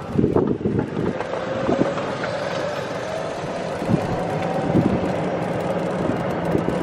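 A golf cart driving on a paved road: a steady rumble with a faint motor whine that rises a little in the first few seconds, and occasional knocks and rattles from the cart.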